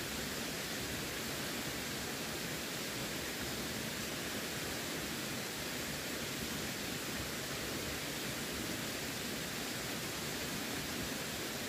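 Running water rushing steadily as an even, unbroken hiss.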